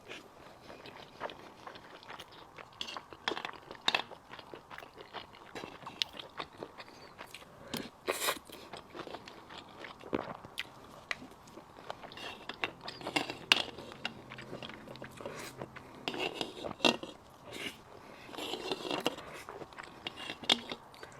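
A person chewing and biting mouthfuls of braised pork rice close to the microphone, with many irregular mouth clicks and smacks.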